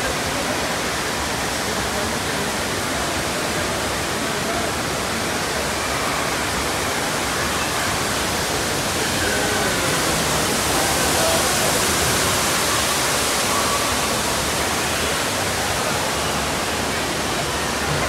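A steady rushing of water, with faint distant voices beneath it.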